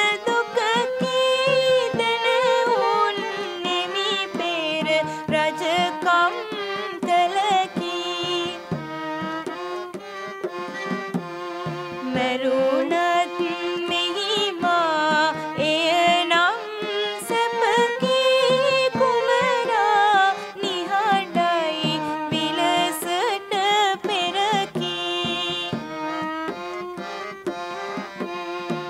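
Background music: a winding, ornamented South Asian melody over percussion, settling on a long held note near the end.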